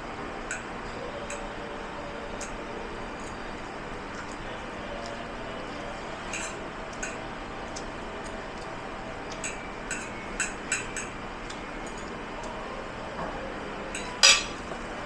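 Dishes and cutlery clinking and clattering now and then over a steady background noise, with a quick run of clinks past the middle and one loud clank near the end.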